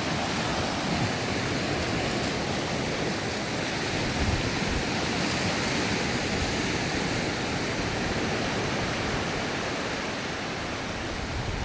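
Sea waves washing onto a sandy beach, a steady rush of surf with no break.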